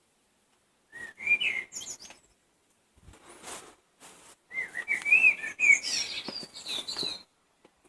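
Songbirds singing: short phrases of quick whistled, warbling notes, three phrases with brief pauses between them, the longest in the second half.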